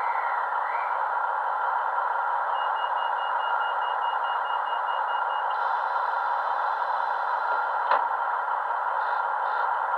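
A model Class 156 DMU's LokSound decoder plays a diesel engine idling steadily through a small megabass speaker, thin and without deep bass. A sharp click is heard about eight seconds in.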